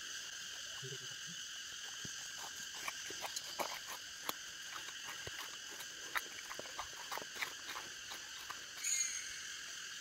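Steady forest insect chorus, a shrill buzzing held at several high pitches at once. Scattered short clicks and ticks start about two seconds in, and a brief high chirping comes near the end.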